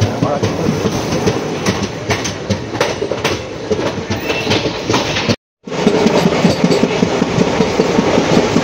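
Sleeper-class coach of a moving Indian express train at speed: wheels clattering over rail joints with steady rattling and clicking from the coach. The sound cuts out completely for a moment just past halfway, then carries on with a steady hum.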